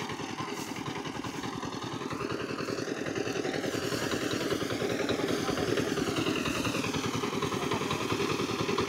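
Motorized paddy threshing machine running steadily with a fast, even pulsing chug, growing a little louder over the first few seconds as bundles of rice straw are fed into the drum.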